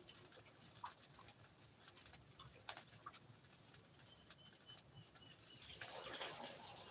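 Faint, near-silent room ambience: scattered light clicks and a few short high chirps, with a brief swell of hiss about six seconds in.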